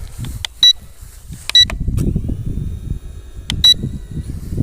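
Three short, high electronic double beeps from the KF102 GPS drone's controls after calibration. Under them runs a steady low rumble of strong wind buffeting the microphone.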